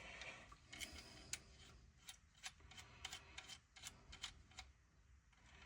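Faint, irregular light clicks and ticks of small metal parts: M8 rivet nuts being handled and screwed onto the rivet-nut setting tool.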